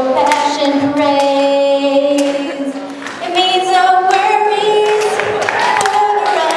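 A woman singing solo into a handheld microphone, holding long notes, with a short break between phrases about three seconds in.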